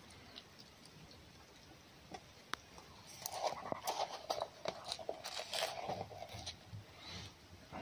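Fox chewing food: a run of irregular wet crunches and clicks that starts about three seconds in and dies away a few seconds later.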